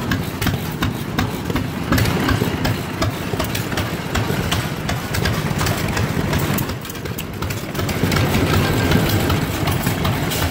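Antique stationary gasoline engines running, with many quick, uneven exhaust beats.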